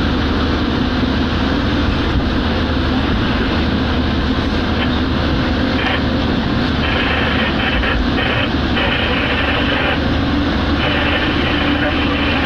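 Cab noise of an ST45 diesel-electric locomotive running at about 100 km/h under full power: the diesel engine pulling hard at about 1500 rpm, with traction-motor and wheel-on-rail noise, and a brighter hiss that comes and goes several times.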